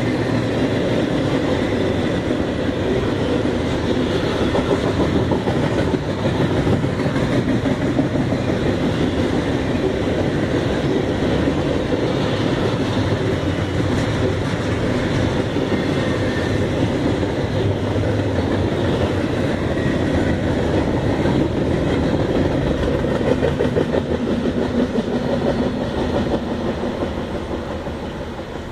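Double-stack container cars of a freight train rolling past, with steady wheel and rail noise and rapid clicking over the rail joints. The noise fades over the last few seconds as the train moves off.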